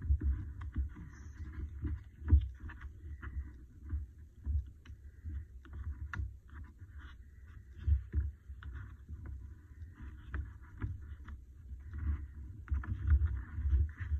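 Glue stick rubbed across paper and hands pressing small paper cut-outs down onto a postcard, with irregular dull thumps on the tabletop, the loudest about two seconds in.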